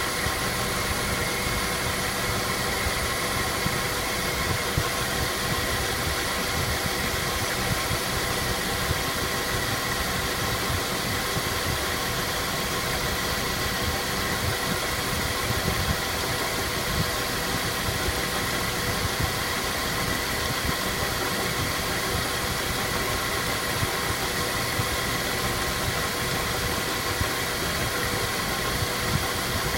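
Mazda 3 running with its automatic transmission turning: a steady mechanical hum with a constant whine and a few light knocks. The knock is the fault the owner traced to the automatic transmission, heard on overrun and gone under throttle.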